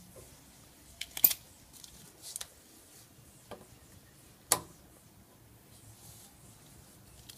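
Scattered sharp clicks and knocks from small parts being handled by hand, the loudest a little over a second in and another about four and a half seconds in, over low room noise.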